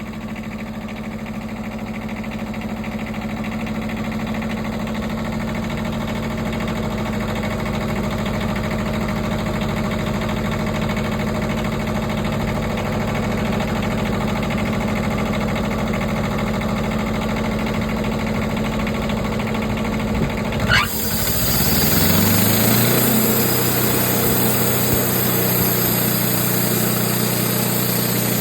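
Wood-Mizer LT15 Wide sawmill engine running steadily at low speed. About two-thirds of the way in there is a sharp clunk, then the engine revs up over a couple of seconds to a higher steady speed, with a hiss added on top.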